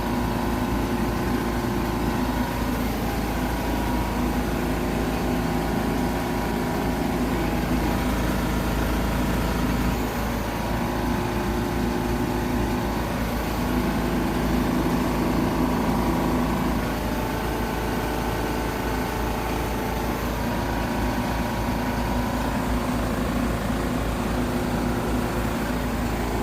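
Compact five-axis CNC tool grinder running: a steady machine hum with a low rumble and a few held tones that shift slightly about ten seconds in and again some seconds later.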